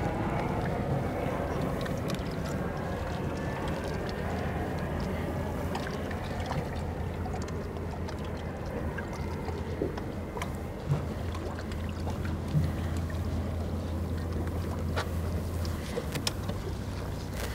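Steady low hum of a boat's outboard engine idling, with a few light knocks; the hum changes pitch near the end.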